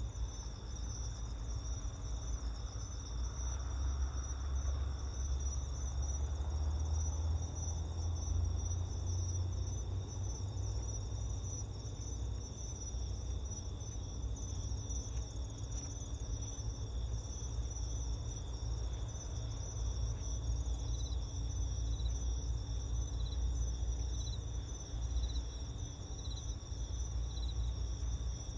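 Night insects trilling steadily in several high-pitched bands, over a low rumble that is heaviest during the first ten seconds or so.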